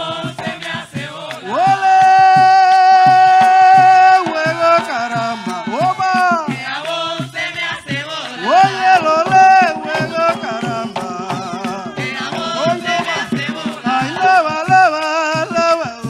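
Live bullerengue sentao: hand drums beating a steady rhythm under singing, with one long held note about a second and a half in, lasting nearly three seconds, then shorter sliding sung phrases.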